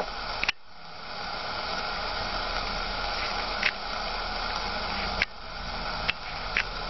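Homemade regenerative VHF-AM airband receiver hissing with static in the gap between aircraft transmissions, nobody on the frequency. The hiss drops suddenly about half a second in and builds back up slowly, with a few short clicks and pops later on.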